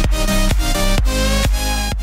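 Electronic dance music with a steady beat, about two beats a second, under held sustained notes.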